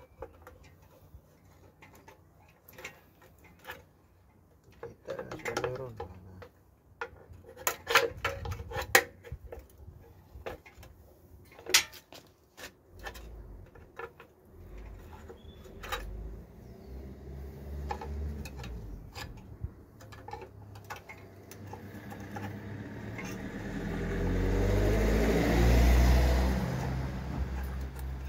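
Hand tools clanking and knocking now and then against a bare BMW N47 diesel engine as a ratchet is worked at its rear end. In the second half a passing vehicle swells up, loudest a couple of seconds before the end, and then fades.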